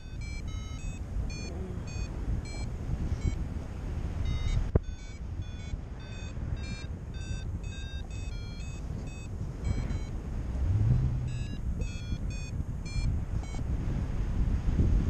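Paraglider variometer beeping in quick short tones that shift in pitch from beep to beep, the audio climb signal of a glider in rising air, with wind rushing over the microphone underneath. There is a single sharp click about five seconds in, and the beeps thin out near the end.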